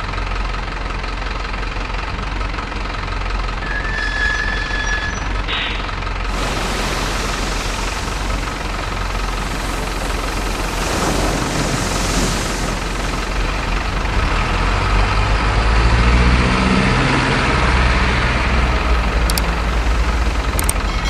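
Diesel truck engine sound from an RC model truck running steadily, with a rush of splashing water about halfway through as it fords muddy water. In the last several seconds the engine note rises and falls as it revs.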